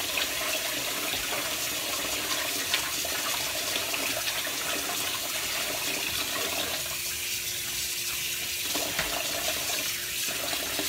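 Kitchen faucet running steadily into a plastic bowl of parboiled rice while a hand swishes and rubs the rice in the water, rinsing off the cloudy starch.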